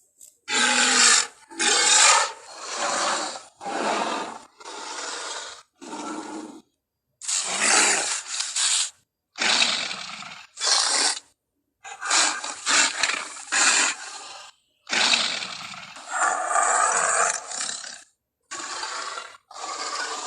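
Gorilla sound effects: a string of more than a dozen short, rough calls, each lasting about half a second to two seconds, with silent gaps between them.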